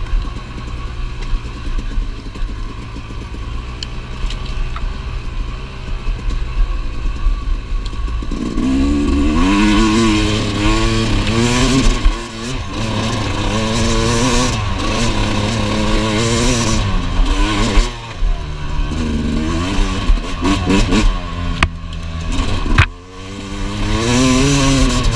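2017 Yamaha YZ250X's single-cylinder two-stroke engine under way on a dirt trail, running steadier at first, then revving up and down repeatedly from about eight seconds in, with brief drops as the throttle is rolled off. A couple of sharp knocks near the end.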